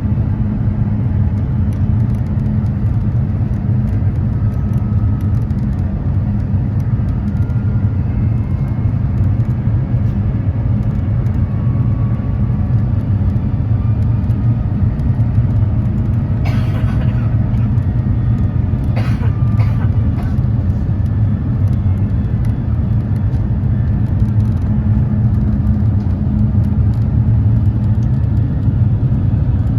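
Steady low rumble of engine and airflow noise heard inside the cabin of an Airbus A350-900 with Rolls-Royce Trent XWB engines, with a low hum running under it. A few brief clatters come a little past halfway.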